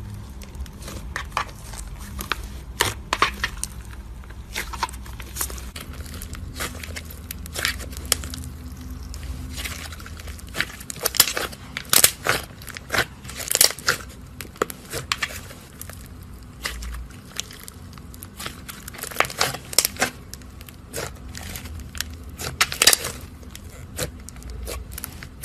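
Slime being squeezed and worked by hand, giving irregular sharp crackles and pops of trapped air, thickest in two busy stretches, over a steady low hum.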